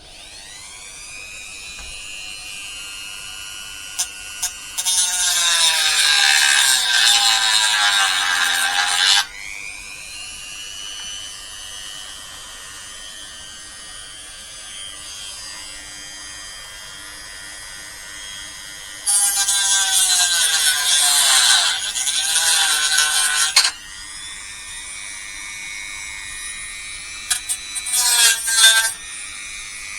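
Small handheld power tool motor running in bursts. It spins up at the start, then runs loudly twice for about four to five seconds at a time, dropping in pitch as each run stops, with a short stop-start burst near the end.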